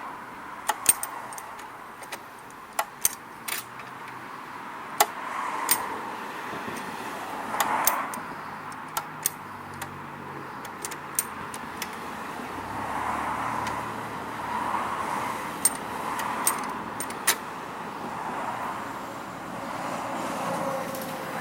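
Sharp metallic clicks and clinks, a dozen or more scattered irregularly, from hands and tools working on a lawn mower. Soft rushing swells rise and fade behind them.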